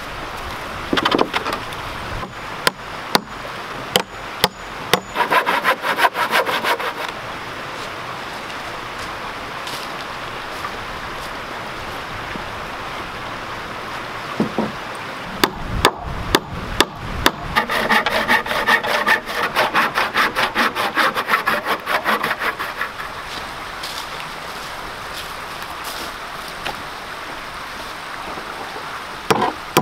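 Wooden knocks and clatter of old barn-wood boards being handled and set down, in clusters near the start and again around the middle. These are followed by a run of quick, even handsaw strokes through a board.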